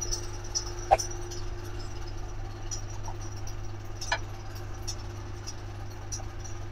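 Workshop background: a steady low hum with scattered faint high ticks, plus a sharper click about a second in and another about four seconds in.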